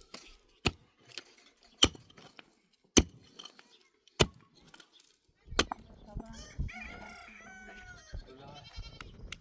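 A series of sharp knocks, about one a second, followed near the end by a rooster crowing one long call.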